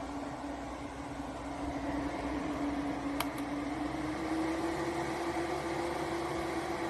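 Small electric fan running steadily with a hum and airy noise, its tone rising slightly in pitch a few seconds in. A faint click about three seconds in.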